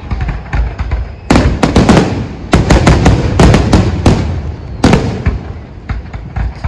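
Fireworks display: after a brief lull, aerial shells go off in rapid clusters of loud bangs for a few seconds. Smaller, scattered pops follow near the end.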